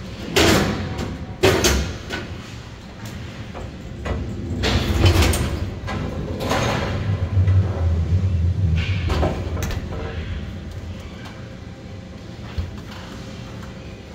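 Ice hockey play: several scraping swishes and knocks from skates and sticks, over a low steady rink hum.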